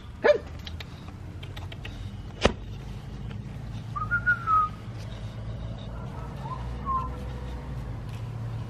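Two short whistled notes, the first wavering and a little louder, the second fainter about two seconds later, over a steady low hum. A single sharp click comes before them.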